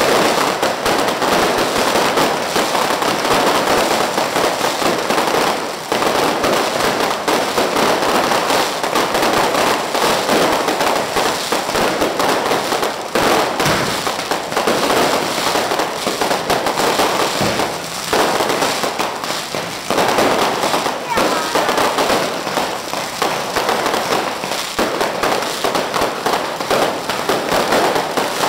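Fireworks and firecrackers going off at close range: a loud, dense, unbroken crackle of rapid bangs and pops.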